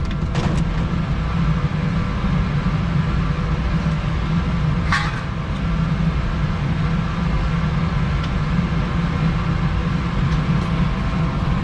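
Steady low hum of rooftop air-conditioning equipment running, with a short clink about five seconds in.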